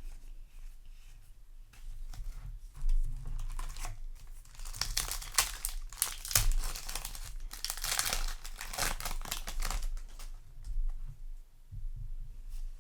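Foil trading-card booster pack wrapper being crinkled and torn open by hand, with the loudest crackling of the foil in the middle of the stretch.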